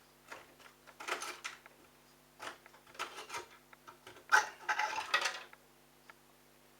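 Short bursts of clattering and scraping as the washing machine's plastic pump filter and its housing are handled, the loudest about four and a half seconds in, over a steady low hum.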